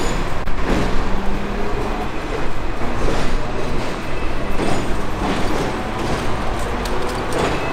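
Busy city street traffic, a dense steady noise of vehicles passing.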